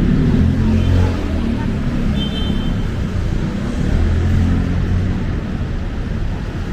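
Busy city street traffic: vehicle engines running with a steady low rumble, and a brief high-pitched squeak about two seconds in.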